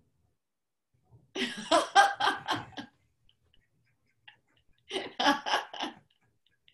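People laughing in two bursts of quick, evenly spaced 'ha-ha' pulses, one starting just over a second in and a shorter one about five seconds in.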